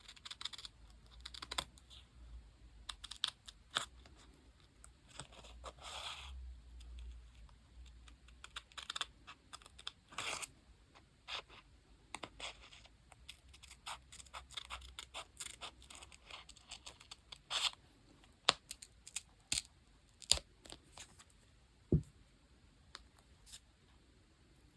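Paper and stickers being handled for diary decorating: a run of small clicks, taps and scratches. There is a longer scratchy stretch about five to seven seconds in and a sharper knock on the desk near the end.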